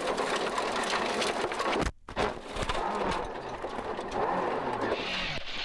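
A 1997 World Rally car's turbocharged four-cylinder engine running hard at rally stage speed over heavy road and wind noise. The sound cuts out abruptly for a moment about two seconds in, then returns with the engine revs rising and falling.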